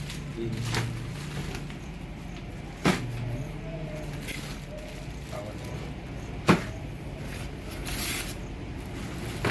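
Cardboard box and packaging being handled: two sharp knocks a few seconds apart and a short rustle near the end, over a steady low background hum.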